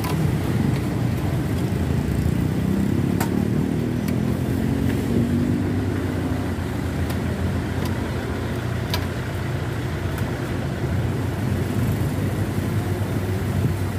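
Steady low rumble of road traffic, with a passing vehicle's engine note swelling between about two and six seconds in, and a few faint sharp clicks.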